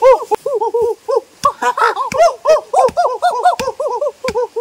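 Many birds calling at once in short, rapid, arched calls that overlap one another, with a few sharp clicks among them.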